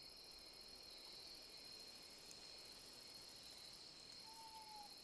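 Near silence: crickets chirring faintly and steadily at night, with a short faint tone about four seconds in.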